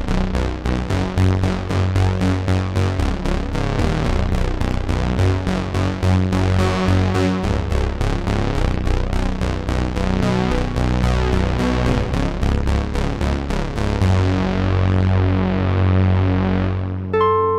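Dreadbox Artemis analog synthesizer playing a fat, Moog-style bass line under a fast, even beat. The bright top of the sound fades away over the last few seconds.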